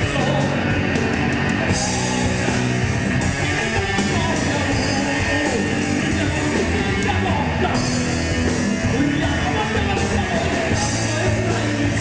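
Live speed/power metal band performing: distorted electric guitar and drums, with the vocalist singing over them.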